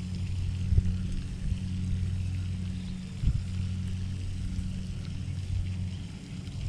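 A steady low mechanical hum that stops about six seconds in, with occasional low rumbles and knocks on the microphone.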